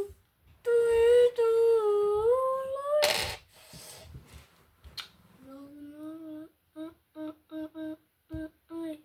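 A person humming a wordless tune: a long held note that dips and rises, a quick breath, then a string of short clipped hummed notes, about two a second.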